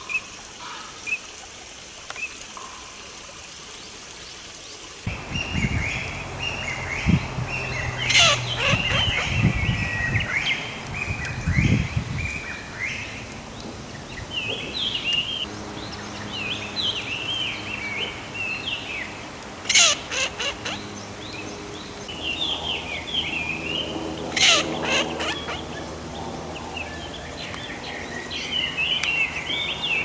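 Female Eurasian teal calling: several short, sharp nasal quacks stand out about 8, 20 and 24 seconds in, over a busy run of quick higher chirping calls that starts about five seconds in. The first few seconds hold only a few faint short calls.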